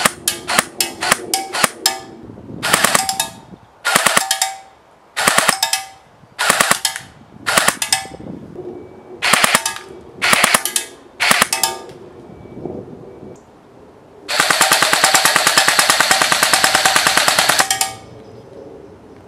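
Ares AM015 Honey Badger airsoft electric rifle firing: a quick run of single shots, then eight short bursts roughly a second apart, then one long full-auto burst of about three and a half seconds near the end.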